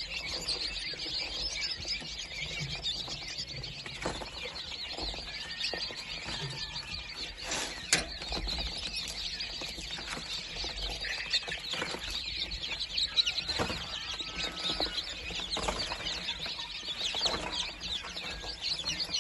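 A crowd of newly hatched chicks peeping continuously, many high-pitched cheeps overlapping, with a few short knocks and rustles, the sharpest about eight seconds in.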